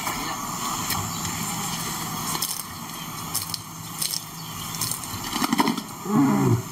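Male lion calling: a low, drawn-out call from about a second in, then a short loud grunt falling in pitch near the end.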